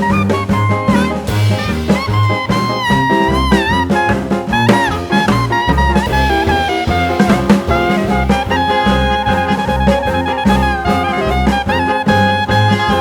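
Background swing-jazz music: brass horns play the melody over bass and drums.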